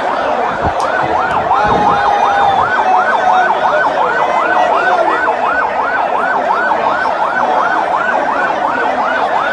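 Vehicle siren on a fast yelp, its pitch sweeping up and down about three times a second, over the steady noise of a large crowd.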